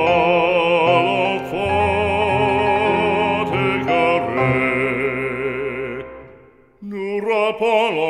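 Background music: a slow operatic song in French, a voice holding long notes with vibrato over accompaniment. It fades away about six seconds in, and a new phrase starts with piano chords near the end.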